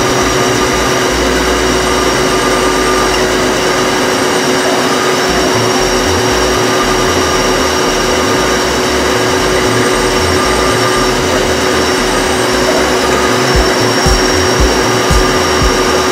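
Kent USA TW-32Qi CNC bed mill cutting a part under program control: its inverter-driven 7.5 HP spindle runs steadily with a constant whine while the cutter works the part and the table feeds.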